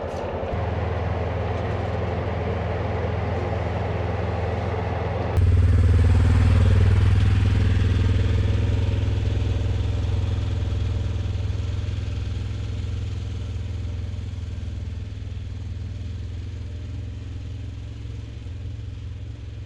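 Side-by-side UTV running as it drives along, a steady low engine drone with wind and rattle noise over it. It gets suddenly louder about five seconds in, then slowly fades.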